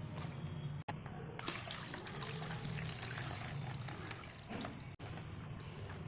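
Water running and splashing, a steady hiss over a low hum that cuts off sharply twice.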